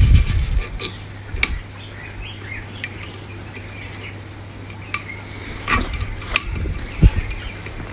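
Scattered metallic clinks and knocks of tools and steel parts being handled while a center pivot gearbox is reassembled, over a low steady hum.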